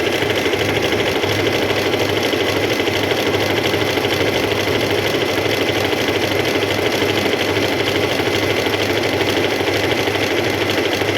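Singer M3505 electric sewing machine running steadily at speed, sewing a decorative pattern stitch: a motor whir with a fast, even needle clatter.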